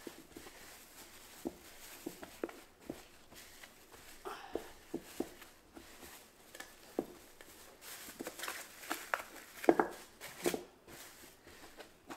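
Plastic bag crinkling and rustling under the hands as a wet wool felt hood is pulled and stretched down over a plastic-wrapped hat block. It comes as scattered small crackles and taps, busiest and loudest in the last few seconds.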